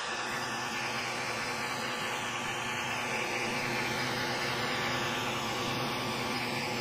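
xTool S1 20W diode laser engraver running while it engraves: a steady fan whir with faint whining from the laser head's drive as it sweeps back and forth.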